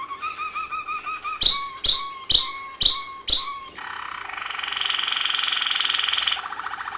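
Domestic canary singing in a cage. It starts with a fast rolling trill, then gives five sharp repeated notes about half a second apart. Next comes a long high trill, which drops to a lower trill near the end.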